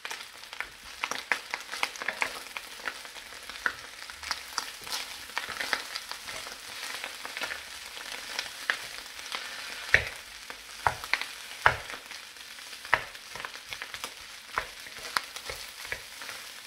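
Rice frying in browned butter in an electric wok, with a steady sizzle and frequent crackling spatter. A wooden spoon stirs and taps the clumped rice apart, giving a few sharper knocks against the wok, the loudest about ten to thirteen seconds in.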